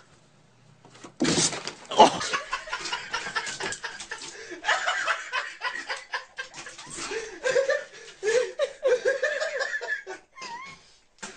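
People laughing hard, starting suddenly about a second in and going on in uneven waves almost to the end.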